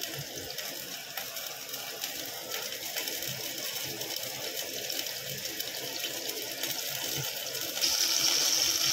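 Coconut oil heating in a frying pan for a tempering, giving a steady faint sizzle; about eight seconds in it turns louder and hissier as the oil gets hot.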